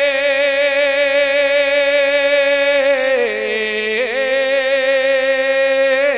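A man singing a naat in tarannum style, drawing out one long wavering note without words; it dips to a lower pitch about three seconds in and climbs back about two seconds later.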